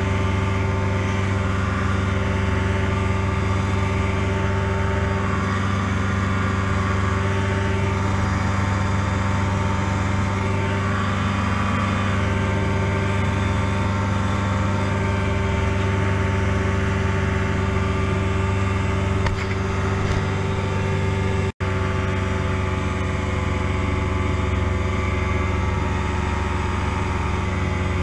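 Challenger I ultralight's engine and propeller running at a steady cruise power in flight, heard from the open cockpit with wind noise. The sound cuts out for an instant about two-thirds of the way through.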